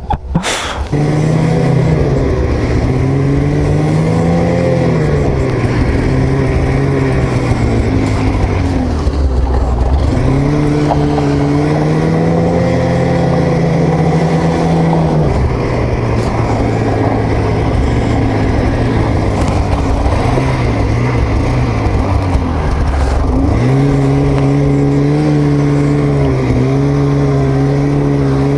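Two-stroke snowmobile engine running under way, its pitch rising and falling with the throttle and holding steady at a higher pitch near the end.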